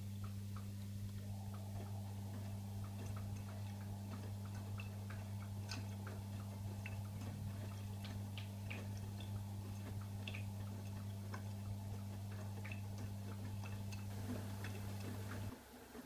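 AEG Öko-Lavamat 85739 washing machine giving a steady low electrical hum, with scattered irregular ticks and clicks over it. The hum cuts off suddenly near the end.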